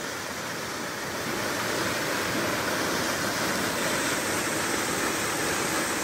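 Waterfall pouring over a rock cliff into a pool: a steady rush of falling water.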